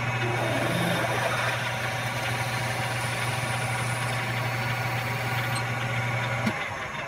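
Metal lathe running with a twist drill cutting into a 12L14 steel bar: a steady motor hum under the hiss of the cut. It stops suddenly near the end.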